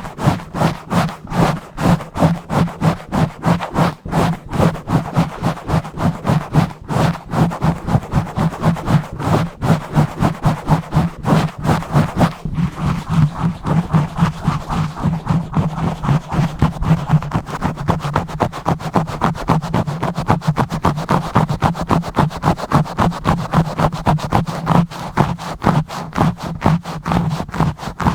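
Fingers scratching and rubbing fast and roughly directly on a microphone, a rapid, steady run of loud scratchy strokes, several a second.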